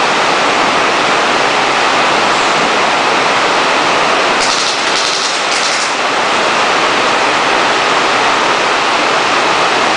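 Heavy rain falling, a loud, steady hiss. About halfway through, a sharper, higher hiss comes in three short pulses.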